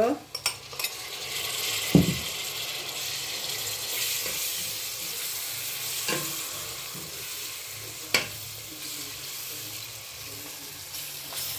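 Chopped tomatoes going into hot oil with frying onions and masala in a stainless steel pot, setting off a steady sizzle while they are stirred in with a spoon. A few sharp knocks on the pot, the loudest about two seconds in.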